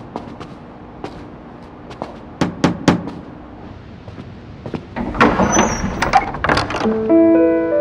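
Three quick knocks on a door about two and a half seconds in. Then, around five seconds in, a clatter of clicks and rustle as the door is unlatched and opened. Background music with held notes comes in near the end.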